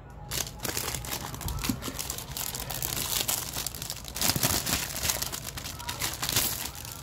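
Clear plastic wrapping around a large hardcover artbook crinkling and rustling as it is handled, in an irregular run of crackles that is loudest a little after the middle.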